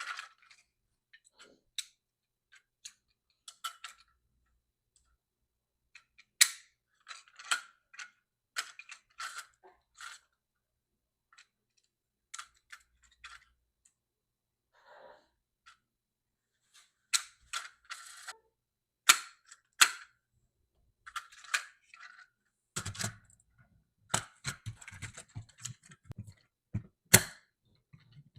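Scattered sharp clicks and taps of diecast metal toy trucks being handled, with quiet gaps between them. About three-quarters of the way through, a denser run of clicks and heavier knocks follows.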